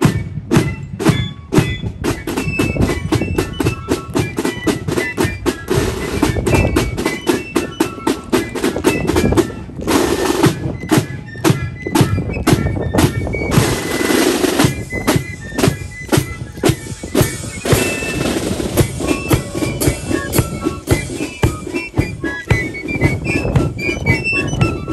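Marching flute band playing: a line of snare drums beating out a rapid, rattling rhythm with a bass drum, and flutes piping a tune over it. The band strikes up right at the start.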